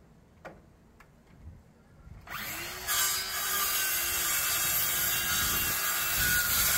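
Handheld circular saw starting about two seconds in and cutting through a wooden board, running loud and steady. A few light knocks come before it starts.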